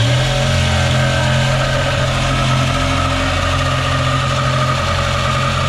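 Electric power saw running steadily as it cuts through the wooden galley cabinet along a marked line, enlarging the opening for a new fridge.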